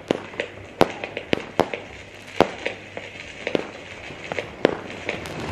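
Lidl 'Black Ice' consumer firework going off: a rapid, irregular string of sharp bangs, about three a second, as shots burst overhead, with crackling between them and some bangs much louder than others.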